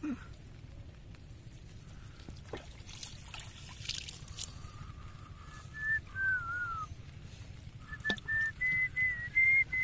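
A person whistling a short tune in two phrases of held notes from about halfway through, the first phrase ending in a downward slide. Before that, water trickles and drips off a fishing net as it is hauled up out of the water into a boat.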